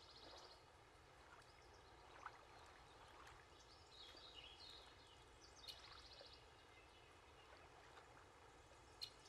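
Near silence: faint background hiss with a few faint, brief high chirps and a couple of tiny clicks.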